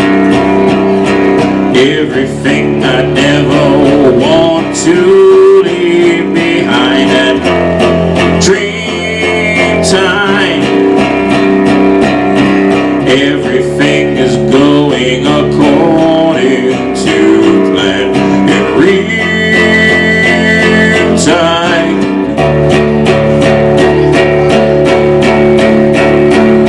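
Electric guitar music with no vocals: a melodic lead line with bent notes over a steady chordal backing, loud and continuous.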